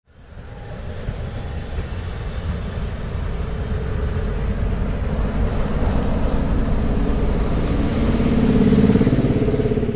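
Diesel locomotive running with a steady low throb, growing louder as it comes closer and loudest about nine seconds in.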